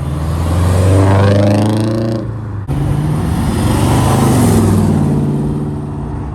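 A performance car's engine revving loudly as it drives by. The sound cuts off abruptly partway through, and then another loud engine pass swells and fades.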